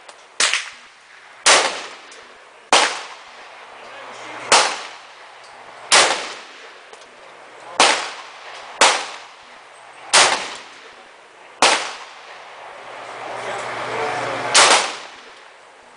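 Semi-automatic AR-15 carbine with a short 10-inch barrel firing .223 rounds: about ten single shots at an unhurried pace, one every one to two seconds, each a sharp crack with a brief echo.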